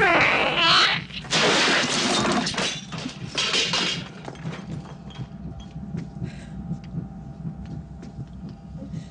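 Shriek of the newborn chestburster creature from Alien: a wavering, pitched screech in the first second, then two loud, harsh hissing screeches, the second ending about four seconds in. After that it dies down to faint clicks.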